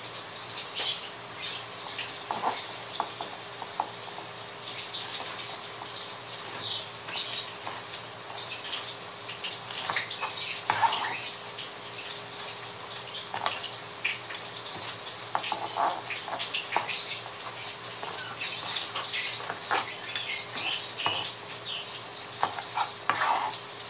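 Hot cooking oil sizzling steadily, with scattered crackles, and occasional clicks of metal tongs against a metal colander as fried tofu strips are lifted out.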